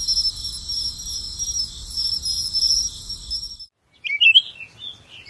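Crickets chirping in a steady, even pulse that cuts off about three and a half seconds in; after a brief gap, birds start chirping in short quick calls.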